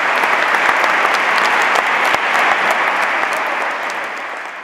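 Audience applauding: dense, even clapping that dies away near the end.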